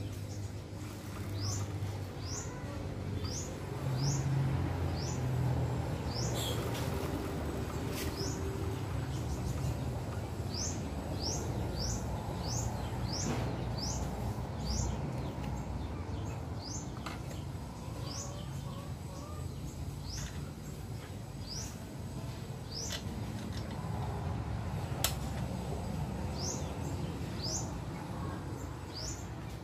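A bird giving short, high, downward-slurred chirps over and over, at times one or two a second, over a steady low rumble. A few sharp clicks fall among them, the loudest about 25 seconds in.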